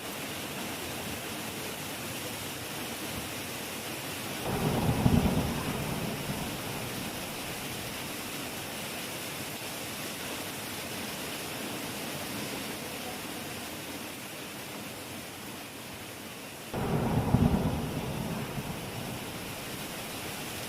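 Heavy rain falling steadily, with two claps of thunder rumbling low, one about four and a half seconds in and one near the end.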